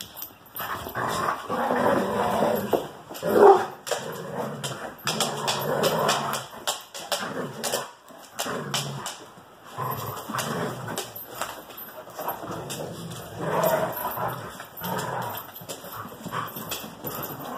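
Dogs barking in irregular bursts during rough play between greyhounds and a French bulldog, the loudest bark about three and a half seconds in.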